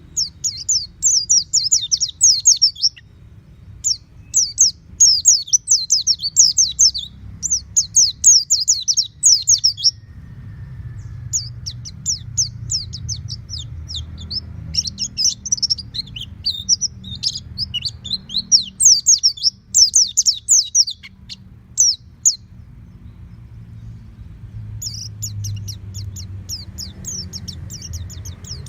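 White-eye (pleci) singing: runs of rapid, high twittering song phrases lasting a few seconds each, with a pause of about two seconds before a last run near the end. A faint low hum lies underneath.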